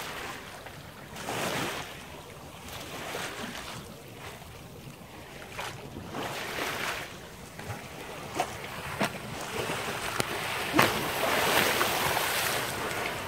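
Water rushing and splashing along a sailing yacht's hull in repeated surges, with wind buffeting the microphone. A few sharp knocks come in the second half, and near the end a louder rush of splashing comes as dolphins break the surface beside the boat.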